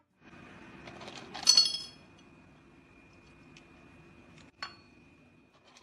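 A bright ringing clink, like glass or thin metal being struck, about a second and a half in, then a shorter, fainter click with a brief ring near the end.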